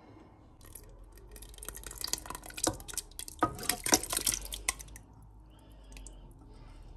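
Cooked beef curry sliding and being scraped out of a pan into a pot of thick dal mixture: wet splattering and plopping with small clicks of the pan, busiest from about one to five seconds in.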